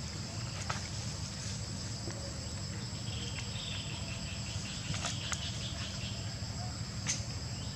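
Steady high-pitched buzzing chorus of insects, over a low steady rumble, with a few faint clicks.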